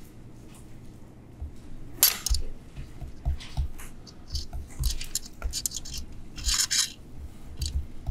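Stylus tapping and scratching on a tablet computer's screen while handwriting, a string of irregular clicks and short scrapes with low knocks, the sharpest click about two seconds in and a longer scrape near the end.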